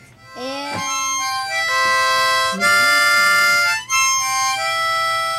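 Long held chords on a musical instrument, several in a row with short breaks. A Weimaraner howls along underneath in rising and falling wails, near the start and again about midway.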